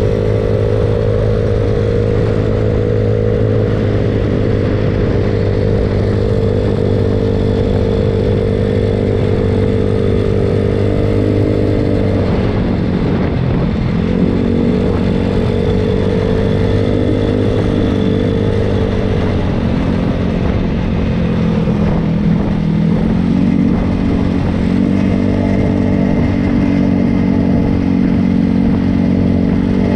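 Small-displacement mini bike engines running steadily at cruising speed. The pitch dips as the throttle is eased about halfway through and again about two-thirds of the way in, then climbs back up.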